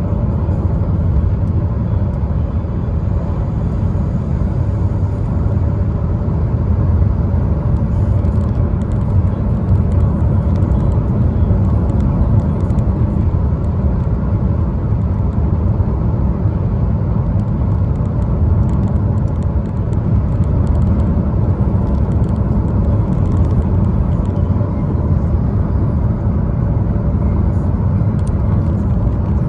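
Steady low rumble of road and engine noise from a 2015 Chevrolet Cruze being driven.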